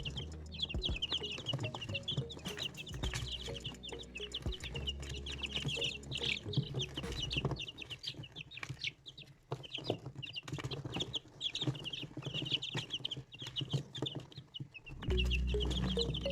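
A group of young chickens peeping, many short high cheeps overlapping without a break.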